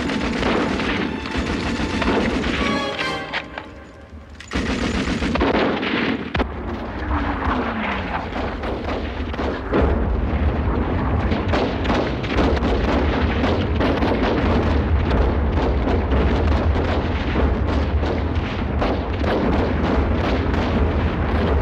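Battle sound effects: rapid rifle and machine-gun fire and shell explosions, with a lull about four seconds in, then a heavy continuous low rumble of bombardment under the shots.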